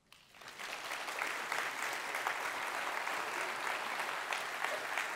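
Audience applauding: many hands clapping together, swelling up over the first half second, then steady.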